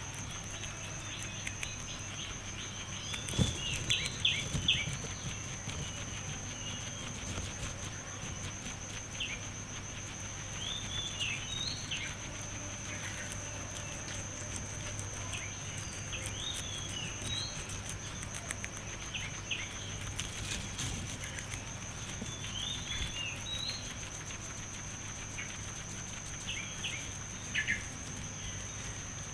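Guinea pig chewing and tearing fresh green grass: crisp crunching clicks in irregular bursts, loudest a few seconds in and again near the end. Under it runs a steady high insect trill.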